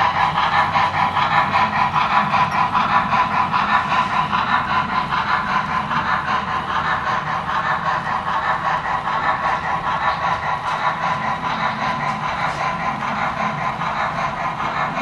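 Model steam locomotive and its train running by, with a steady, fast, rhythmic chuffing over the rolling of the cars, slowly getting quieter as it pulls away.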